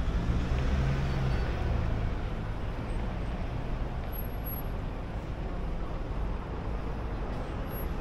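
Road traffic passing close by: car engines and tyres on the road, loudest in the first couple of seconds as a car goes past, then a steady traffic rumble.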